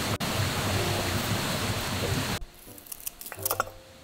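Steady rushing of a mountain stream, which cuts off abruptly about two and a half seconds in, leaving quiet with a few short snips of kitchen scissors cutting green onion.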